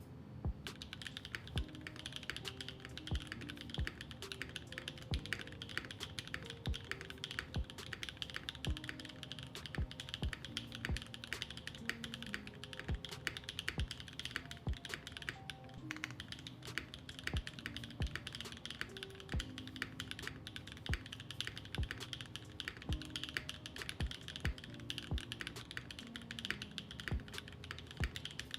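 Continuous fast typing on a Typface Univers 70% custom mechanical keyboard, built with an aluminium plate on a tadpole mount and no foam, its key strokes clicking steadily. Background music plays under the typing.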